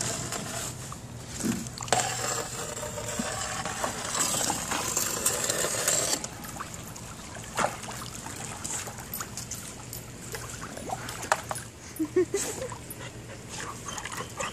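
Water splashing and sloshing as a dog swims in a swimming pool after a skimmer net, heaviest in the first six seconds. A dog whines briefly near the end.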